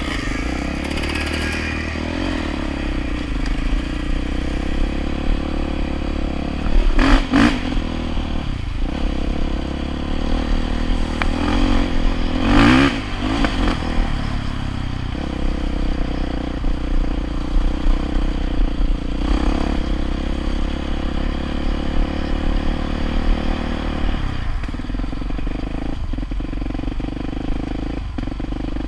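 Small off-road vehicle engine running steadily, revved up briefly twice, about seven seconds in and again around twelve seconds in.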